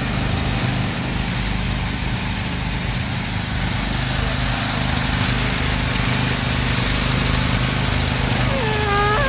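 Small engine running steadily at a constant speed, driving a homemade bore-well drilling rig. A brief voice-like call sounds near the end.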